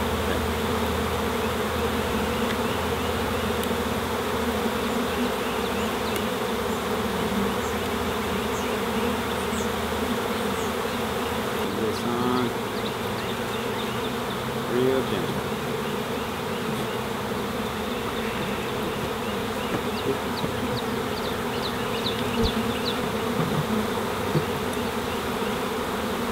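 Steady, dense buzzing of a mass of honey bees in flight around opened bee packages, as package bees are installed into hives.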